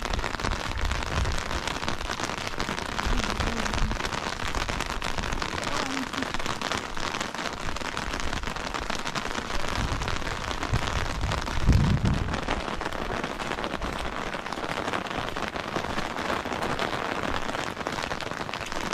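Steady rain falling on surfaces, a dense hiss of fine drops, with a few low thumps, the loudest about twelve seconds in.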